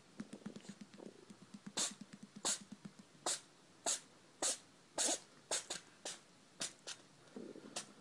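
A kitten sneezing over and over: a long string of short, sharp sneezes, about one or two a second, starting about two seconds in.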